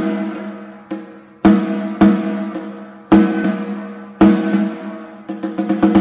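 Hinger wooden-shell snare drum played solo with sticks: single hard strokes about a second apart, each ringing out at length in a large, reverberant room, then a quick flurry of strokes near the end.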